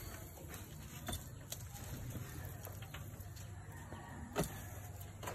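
Steel digging bar being driven into and prying at a termite mound: a few separate knocks and crunches of earth, the loudest about four seconds in, over a low steady background hum.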